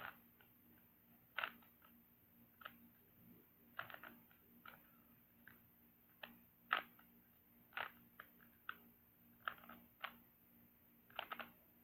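Rubik's cube being twisted by hand: faint, irregular plastic clicks and clacks as its layers are turned, about one or two a second, some in quick pairs.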